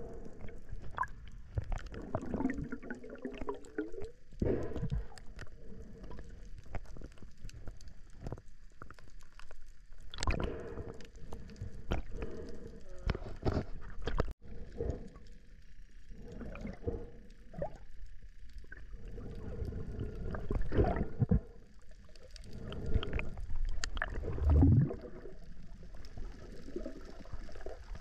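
Muffled underwater sound heard through a diver's camera: gurgling water movement with irregular knocks and clicks as the diver swims and handles the speared fish, and a heavier low thud about three quarters of the way in.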